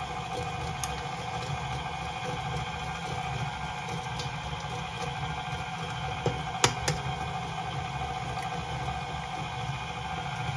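KitchenAid stand mixer running slowly with its flat beater, a steady motor hum. About two-thirds of the way through come two sharp taps, an egg being cracked against the bowl.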